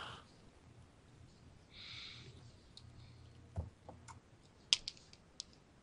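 A few faint, scattered clicks, several of them close together between about three and a half and five and a half seconds in, with a soft hiss like a breath about two seconds in.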